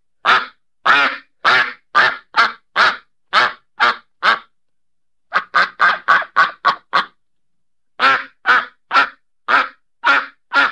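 A duck quacking in three runs of loud, evenly spaced quacks: about two a second, with a quicker string of quacks in the middle run and short pauses between the runs.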